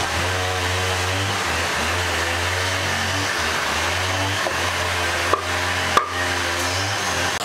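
Electric wood lathe running, a steady motor hum with a wavering whine and a strong hiss over it. Two sharp clicks come near the end.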